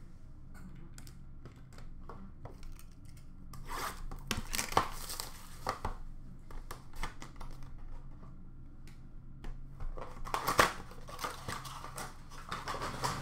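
Trading-card boxes and packaging being opened and handled by hand: crinkling and tearing of wrap and cardboard with scattered clicks and taps, busiest about four seconds in and again about ten seconds in. A steady low hum runs underneath.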